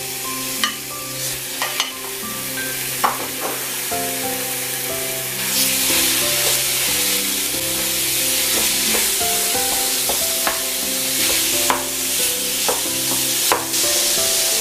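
Ground beef sizzling as it browns in a nonstick pan, stirred and broken up with a wooden spoon that knocks and scrapes against the pan. The sizzle grows louder about five or six seconds in.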